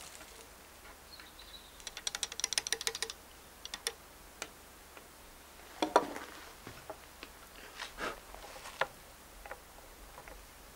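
A quick rattle of small metallic clicks about two seconds in, then a few scattered light knocks and taps. These are the brass loading tool and the raised breech chamber of an 1849 Kammerlader rifle being handled during loading.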